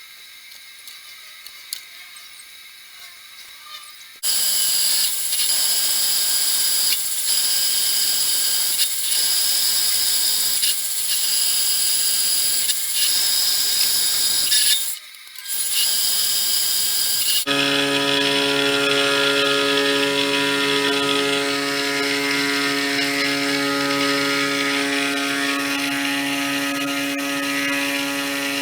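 A homemade CNC machine's spindle motor starts about four seconds in and runs at high speed with a high-pitched whine, dipping about every two seconds as it works. It cuts out briefly, and after that a steadier, lower-pitched set of tones takes over.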